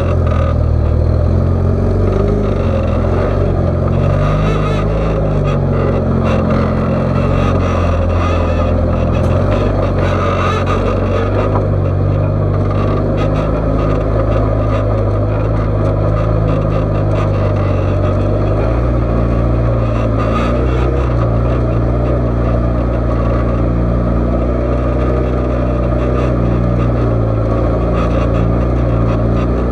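Rock-crawler buggy's engine running under changing throttle, its pitch stepping up and down as it crawls, then settling to a steadier, lower note about two-thirds of the way through.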